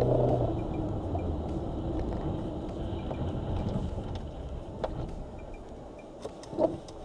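Dashcam recording of a car's own engine and road noise in slow traffic: a steady rumble that gradually gets quieter. A brief sharp sound comes near the end.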